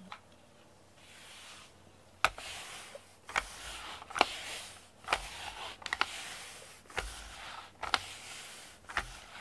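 A grooming brush drawn through a cat's fur in repeated short strokes, about one a second, starting about two seconds in. Each stroke is a brief rasp that opens with a click.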